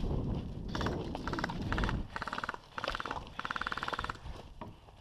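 Airsoft electric rifle firing a string of short full-auto bursts, each a rapid rattle of shots, about six bursts in quick succession. A low rumble runs under the first two seconds.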